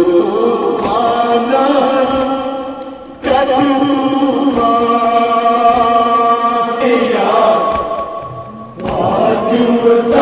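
Men's voices chanting a Kashmiri noha, a mourning lament, amplified through a microphone, with a lead reciter and the crowd joining in. Long held sung lines, with short breaks about three seconds in and again near the end.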